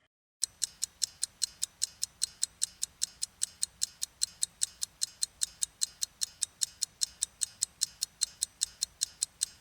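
Countdown-timer ticking sound effect, like a clock ticking fast, about five even ticks a second, starting about half a second in.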